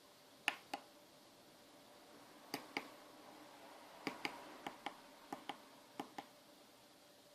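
Small tactile push buttons on a DSO138 oscilloscope kit pressed and released, each press giving a pair of sharp clicks; six presses at uneven intervals.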